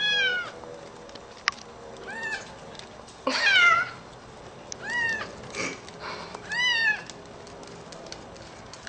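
A young kitten mewing, five high-pitched mews each rising then falling in pitch, spaced a second or two apart.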